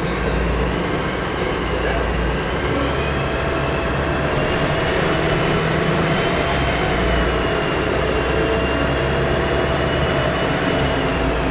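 Volvo B10M bus's straight-six diesel running under way with its turbocharger whistling: a thin high whine that climbs about two seconds in, holds, and eases off near the end, over the engine's low drone.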